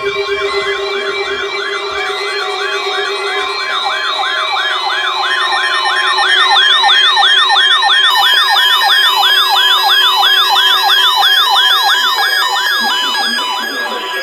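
Electronic alarm of emergency alert receivers sounding for a Required Weekly Test: a fast, repeating rising sweep like a siren, about three times a second, layered over steady electronic tones. It grows louder about six seconds in and fades near the end.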